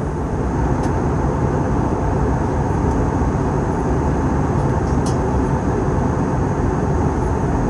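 Steady in-flight cabin noise inside an Airbus A319 with CFM56 engines: a constant, heavy low drone of airflow and engines with a faint high whine above it. There are two faint clicks, about a second in and about five seconds in.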